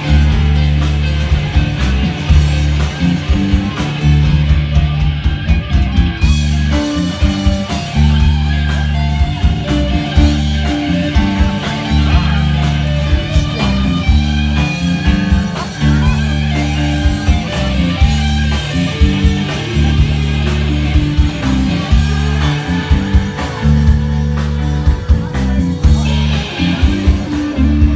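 Live blues band playing, with electric guitar over drums. The music is loud and steady, with a heavy, moving low end.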